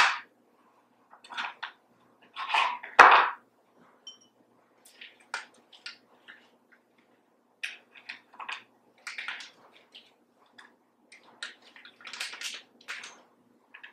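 Scattered short kitchen handling noises: taps, clicks and rustles as a knife, a wooden cutting board, vanilla beans and glass bottles are handled, with a sharp click about three seconds in.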